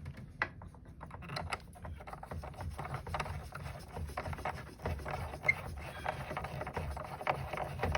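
Hands fitting and screwing a plastic drain cap onto a portable air conditioner's drain outlet: irregular small clicks, taps and rubbing.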